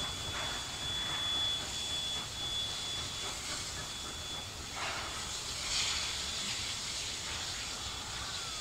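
Baldwin steam locomotive 5917 working a train away into the distance: a steady steam hiss over a low rumble, with a few faint swells of exhaust.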